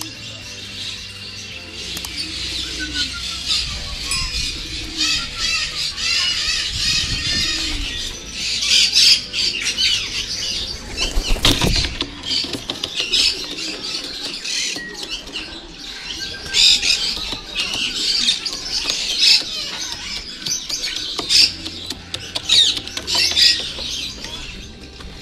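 Racing pigeons flapping their wings as they come in to land on the loft's landing board, with one loud close flurry about halfway through. Small birds chirp throughout.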